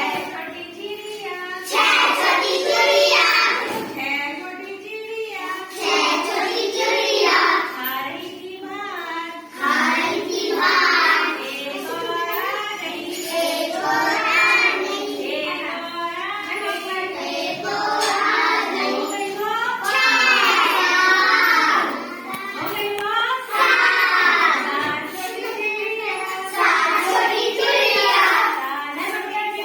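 Children's voices singing a Hindi counting rhyme in repeated phrases of about two seconds each.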